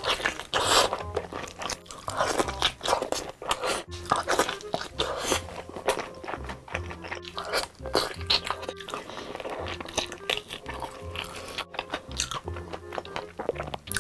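Close-miked biting and chewing of crispy sweet-glazed fried chicken drumsticks: a dense, irregular run of loud crunches, over background music.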